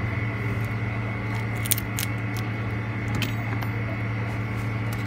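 A few small sharp clicks of a metal pry tool and fingers unsnapping parts and connectors inside an opened Samsung Galaxy S7 edge, a cluster about one and a half to two seconds in and another about three seconds in, over a steady low hum.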